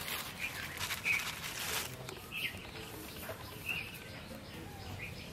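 Plastic bag rustling as flour is scooped out with a cup and poured into a steel plate, with a few short bird chirps in the background.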